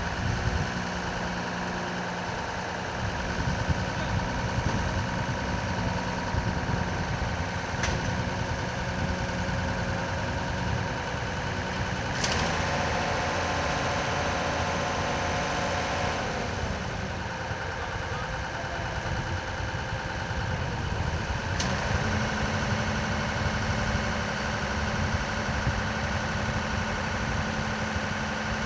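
Ship's cargo crane machinery running with a steady hum, its pitch changing a few times as the hoist works, with a few faint clicks.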